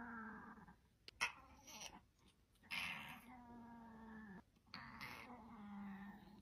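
Long-haired gray cat meowing in long, drawn-out calls held at a steady pitch: a short one about a second in, then two longer ones.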